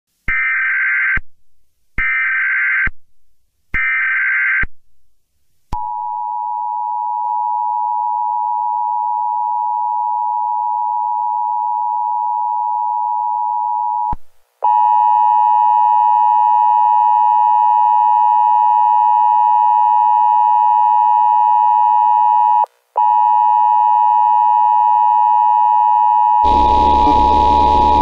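Emergency Alert System test signal. It opens with three short screeching bursts of digital header data, each just under a second long, then goes into the long, steady two-tone EAS attention signal. The tone breaks briefly about 14 seconds in, returns louder and harsher, dips out again for a moment near 23 seconds, and a hiss of static joins it near the end.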